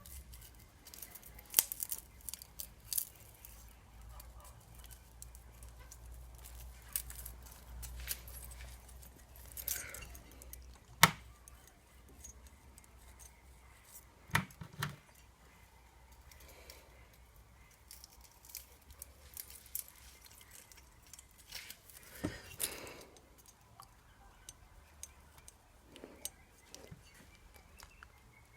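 Scattered clicks, clinks and knocks of hand tools and small metal parts being handled on a scooter engine under repair, with sharper knocks about a second and a half, eleven and fourteen and a half seconds in.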